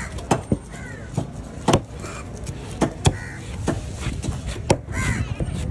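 A large curved fish-cutting knife chops through small red snapper on a wooden cutting block: about nine sharp chops at uneven intervals.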